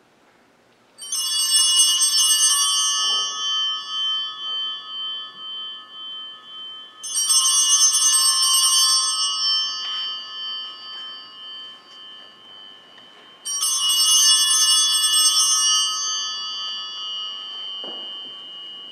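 Altar (sanctus) bells rung three times, about six seconds apart. Each ring is a short shake of a cluster of small bells that fades slowly with a lingering high tone. This marks the elevation of the consecrated bread in the Eucharistic prayer.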